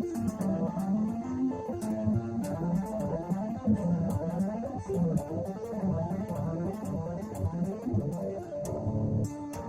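Instrumental music: electric guitar playing busy, quickly changing note runs over a low bass line, with frequent sharp percussive ticks on top.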